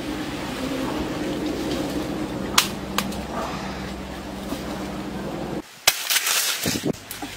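Rustling of santol tree branches and leaves with two sharp snaps near the middle. About six seconds in, a santol fruit lands with a thud on dry fallen leaves, followed by a short crackle of leaves.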